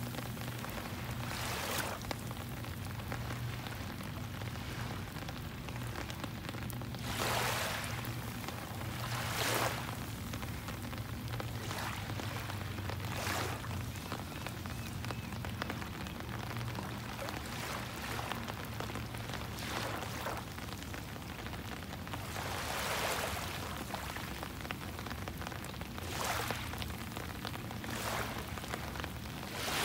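Rain falling on the sea surface, a steady hiss, with louder washes of noise rising and fading every few seconds and a low steady hum underneath.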